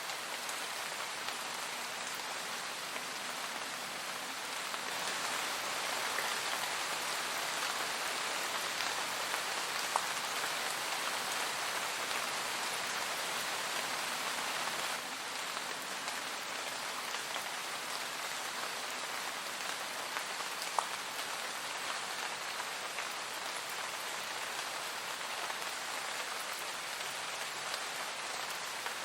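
Steady rain falling on a surface, an even hiss with a few louder single drops hitting now and then.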